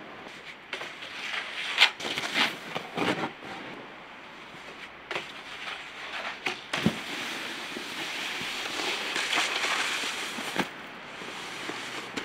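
Snowboard knocking and scraping on packed snow and a metal handrail during a rail slide: a run of sharp clacks over a scraping hiss, then a longer hissing slide about eight seconds in.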